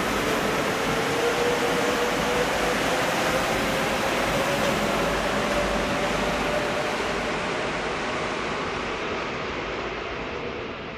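Rubber-tyred Mexico City Metro NM-73 train pulling out of an underground station. There is a loud rush of running noise and a motor whine that rises slowly in pitch as it speeds up, and the sound fades over the last few seconds as the train leaves.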